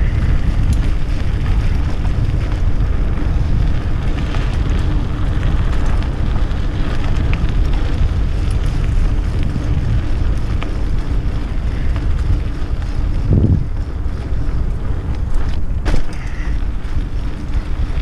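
Wind rushing over a helmet-camera microphone on a mountain bike moving fast down a dirt trail: a loud, steady low rumble with an occasional knock from the bike.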